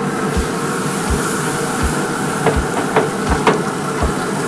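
Wire-free grill-cleaning block scrubbed back and forth over the hot grates of a Pit Boss pellet grill: a steady scraping with a low thud about every three-quarters of a second and a few sharp knocks on the grate near the middle.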